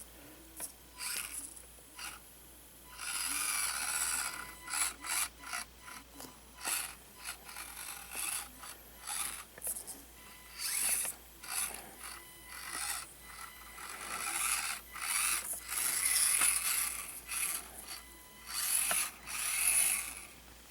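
An Axial SCX24 micro crawler's small electric motor and plastic geared drivetrain whirring in stop-and-go runs as it is driven, some short blips and some longer pulls of a few seconds.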